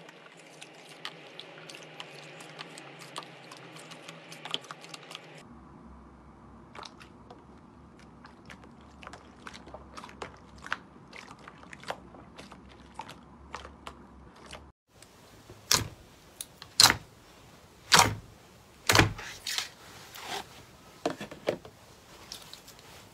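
Clear jelly slime being squeezed and kneaded by hand, with a dense run of small wet clicks and crackles as air pockets in the slime pop. In the last third come much louder, sharper pops and slaps, about eight of them, from a slab of green jelly slime being handled.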